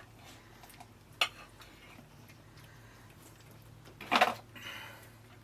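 Knife cutting a burger in half on a plate: a sharp clink about a second in, then a louder knock about four seconds in and a brief scrape.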